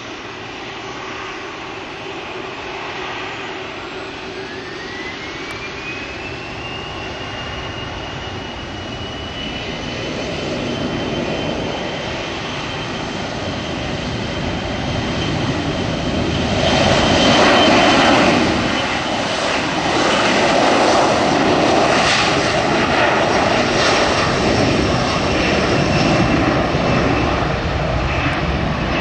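A Boeing 737-300's CFM56-3 turbofans spool up to takeoff thrust. A rising whine about four seconds in levels off into a steady high whine. Under it the jet roar grows louder, is loudest a little past the middle as the airliner runs by on its takeoff roll, and stays loud as it climbs away.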